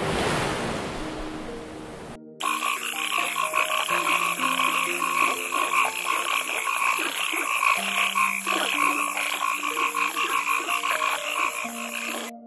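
A wash of surf-like noise that fades, then after a cut about two seconds in, a dense chorus of frogs calling in a fast pulsing trill, with soft music notes underneath.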